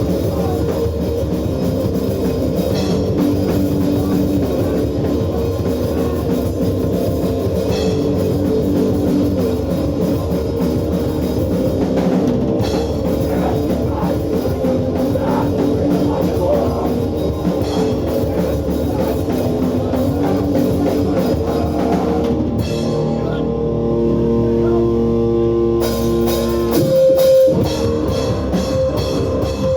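Hardcore punk band playing live: loud distorted guitars, bass and pounding drums. About 22 seconds in, the drums and cymbals drop out for a few seconds, leaving held guitar and bass notes ringing. Then the full band crashes back in.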